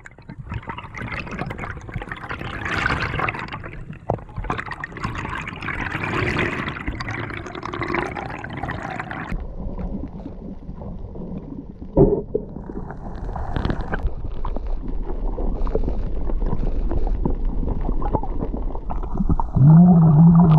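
Underwater sound from a freediver's camera: water rushing and bubbling, then a duller, muffled rumble with faint ticks from about nine seconds in. There is a sharp click about twelve seconds in, and a short muffled hum near the end as bubbles stream from the diver's snorkel.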